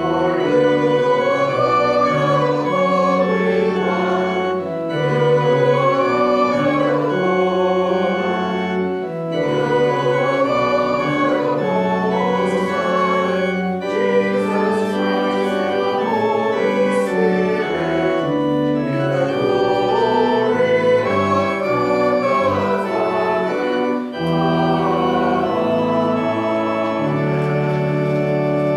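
Organ playing a hymn in slow, sustained chords, ending on a chord held over the last few seconds.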